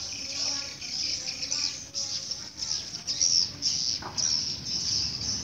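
A flock of swiftlets (walet) twittering: a dense, unbroken high chirping.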